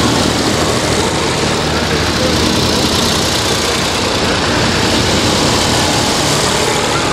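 Vintage farm tractors driving past one after another, their engines running steadily and close by.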